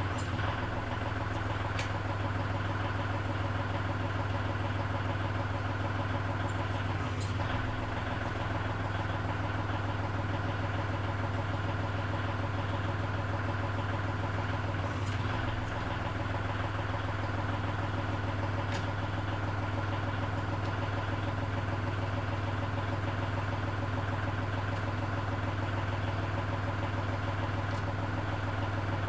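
Kubota L3560 tractor's diesel engine idling steadily, with a few faint clicks over it.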